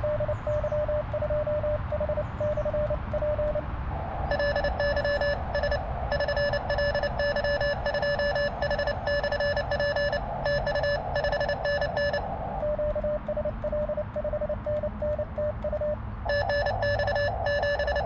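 Morse code (CW) from a small Elecraft KX2 transceiver during an on-air contact on the 17-metre band: a steady tone of about 600 Hz keyed on and off in dots and dashes over receiver hiss. A softer, clean keyed tone is heard for the first few seconds and again about two-thirds of the way through. Between those stretches, from about four seconds in and again near the end, a louder, buzzier keyed tone alternates with it as two stations trade signal reports.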